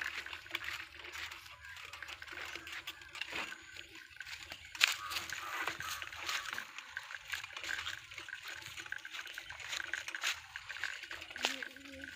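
Irregular crackling and rustling of dry fallen leaves and grass under a child's bicycle tyres and the footsteps of someone walking beside it, with scattered sharper clicks.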